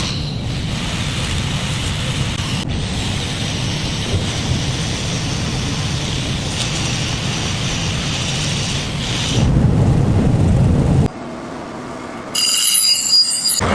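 Steady mechanical running noise, louder for a moment late on, then a sudden drop and a brief harsh high-pitched sound near the end.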